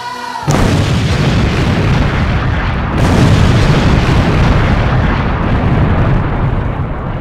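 Tannerite exploding target detonating: a sudden loud boom about half a second in, a second sharp blast about three seconds in, then a long heavy rumble that slowly fades.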